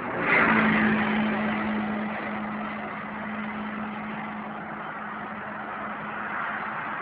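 Motorway traffic noise: a steady rush of tyres and engines, with one vehicle passing loudest about half a second in, its steady engine hum fading away over the next few seconds.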